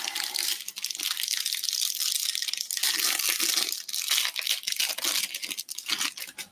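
Trading-card pack wrapper being torn open and crinkled by hand, with the stack of cards inside rustling as it is pulled out. The sound is a continuous crackly rustle that stops abruptly at the end.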